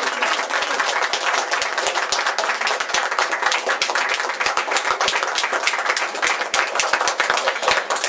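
Crowd of people applauding: many hands clapping in a dense, steady patter.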